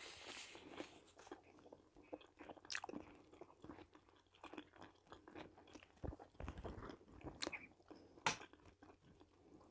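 Faint close-up chewing of soft zucchini fritters, with small scattered mouth clicks and smacks picked up by a lapel microphone.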